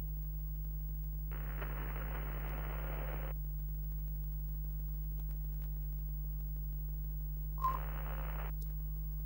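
Steady low electrical mains hum, with a two-second patch of hissy static starting about a second in and a shorter one near the end that carries a brief beep.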